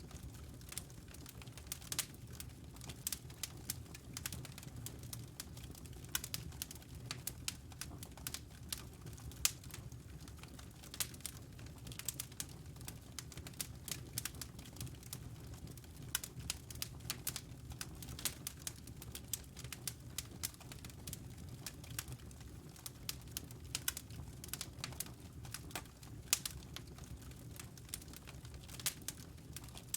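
Wood logs burning in a fireplace, crackling: frequent, irregular sharp pops and snaps over a low, steady rumble.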